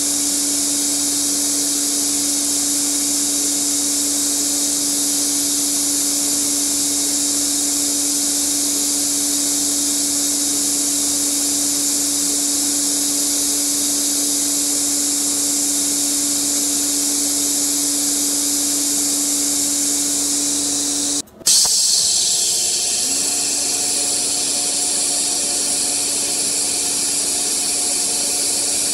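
TIG welding arc on stainless steel from a Miller Dynasty 210 DX running DC at about 120 amps: a steady, loud hiss with a low hum under it. About 21 seconds in, the sound cuts out for a moment and then comes back.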